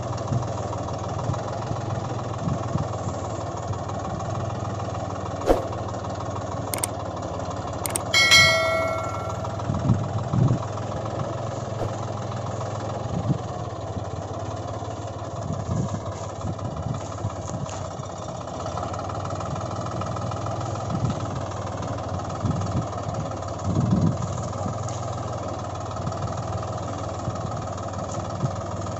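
Steady engine hum like a truck idling, with a few sharp clicks and a brief ringing chime about eight seconds in.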